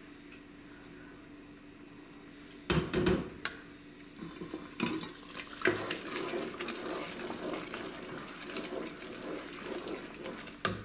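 Red chile sauce frying in a hot pan, sizzling and spattering while it is stirred with a wooden spoon. A couple of sharp clatters of cookware come about three seconds in, where the sizzling starts.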